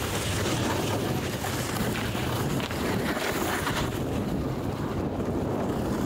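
Steady rush of wind over the microphone mixed with the scraping slide of a snowboard over snow, as the rider and the following camera move downhill.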